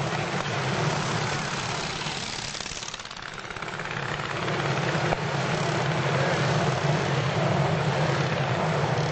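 Antique racing motorcycles' engines running at speed. The sound dips about three seconds in and then builds back up.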